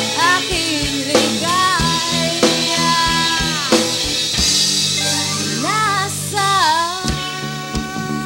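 Rock song with a singing voice carrying the melody over a steady drum beat, bass and guitar.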